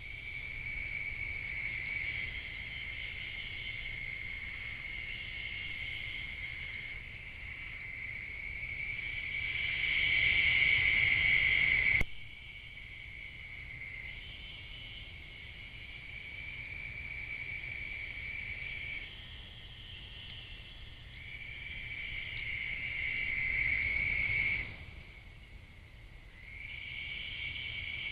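Night insects trilling in a steady high chorus, over a low rumble. The chorus swells, then drops off suddenly twice.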